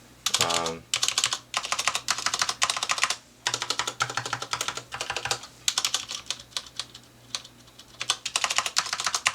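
Rapid typing on a Filco Majestouch 2 Ninja mechanical keyboard with Cherry MX Brown tactile switches: fast runs of keystroke clicks broken by short pauses about three and a half and five and a half seconds in, and a longer one around seven seconds. A slight spring ping from the keys is just noticeable.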